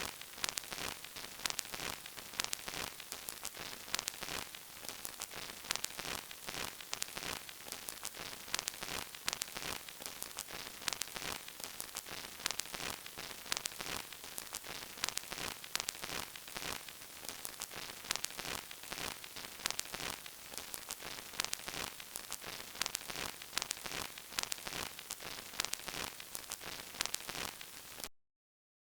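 Old vinyl record crackle: a steady surface hiss thick with random clicks and pops, cutting off suddenly near the end.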